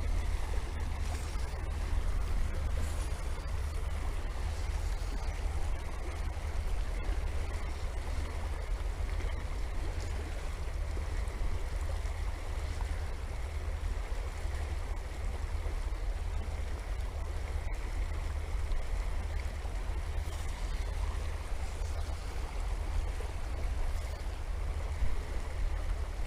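Wind buffeting the microphone as a steady low rumble, over the rush of flowing river water.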